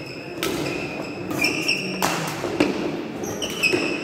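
Badminton rally: several sharp racket strikes on the shuttlecock, a second or so apart, with short high squeaks of court shoes on the mat between shots.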